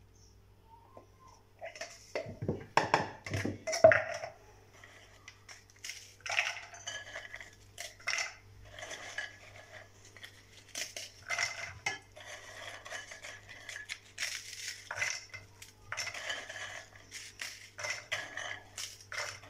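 Crisp square biscuits being snapped by hand and dropped into a plastic chopper bowl: irregular crackling and clattering in short runs, loudest a few seconds in.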